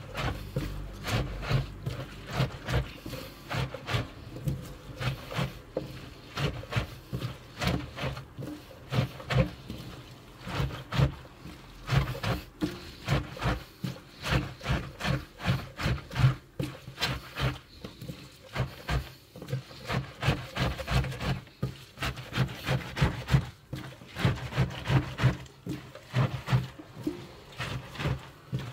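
Hands squeezing and kneading salted wild garlic shoots in a stainless steel sink: wet rustling and squishing of the leaves in an uneven rhythm of about two squeezes a second, each with a soft thud. The squeezing works the salt in and presses out the juice before fermenting.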